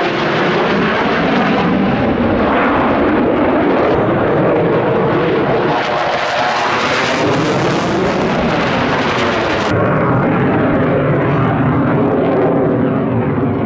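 Jet noise from a Su-35S fighter's twin afterburning turbofans as it flies overhead in an aerobatic display: a loud, steady rush with a sweeping, phasing quality as the aircraft moves. The hiss grows brighter in the middle and drops off abruptly a few seconds before the end.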